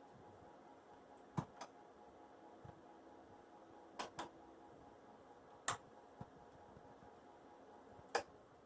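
Ceiling fan running with a faint steady hum, broken by sharp clicks now and then: a quick pair about a second and a half in, another pair about four seconds in, then single clicks near six and eight seconds.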